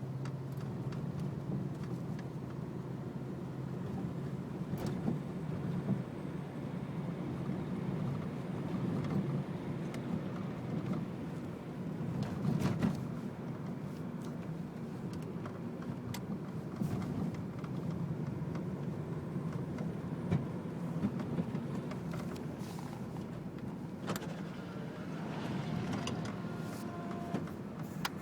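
Subaru EJ22T turbocharged flat-four engine running steadily, broken by irregular thumps, the symptom that the owner suspects is a misfire or a boost leak.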